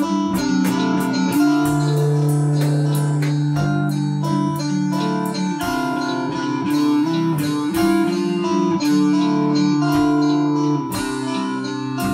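Instrumental music: quick plucked notes over held tones.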